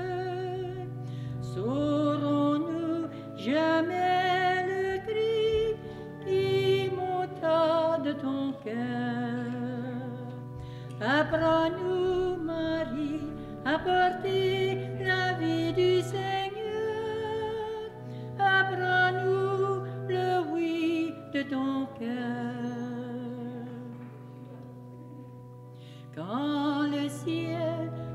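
Hymn music: a singing voice with vibrato over a held low accompaniment, the music growing quieter for a few seconds near the end.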